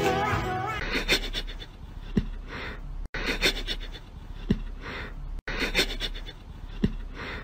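Music fades out in the first second. Then a cat sniffs at a socked foot: short, breathy sniffs about once a second, with a few faint clicks.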